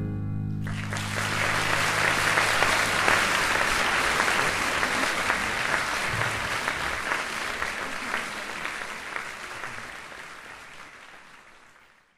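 Concert audience applauding at the end of the performance. The music's last low note dies away as the clapping starts; the clapping swells, holds, then fades out toward the end.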